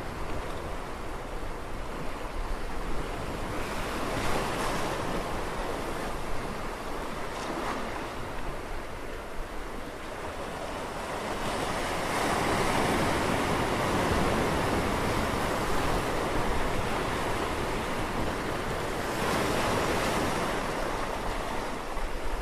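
Sea waves surging and washing back, the surf swelling and easing several times, loudest through the middle stretch.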